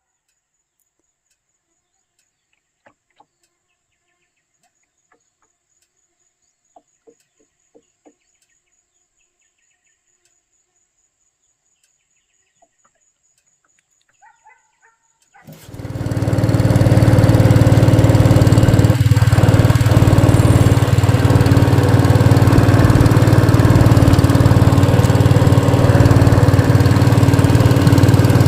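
Near silence with a few faint clicks, then about halfway in an engine starts up and runs loud and steady.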